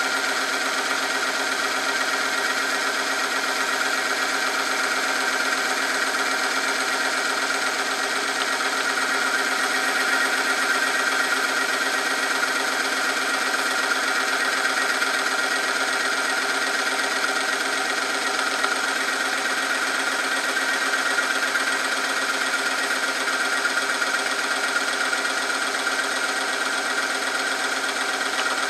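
Oil film strength test machine running under load: its electric motor spins a shaft against a weighted test sample in hot oil. It makes a steady mechanical hum with a high whine, with no change in pitch.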